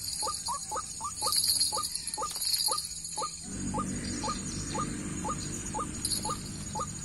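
White-breasted waterhen (ruak-ruak) calling: a long, even series of short rising notes, about three a second.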